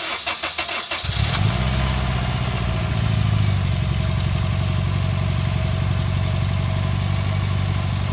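Honda Fit's 1.5-litre four-cylinder engine cranking on the starter for about a second, then catching and settling into a steady idle. It runs smoothly after a stripped spark plug thread in cylinder 3 was repaired with a helicoil: no misfire, it "sounds fine".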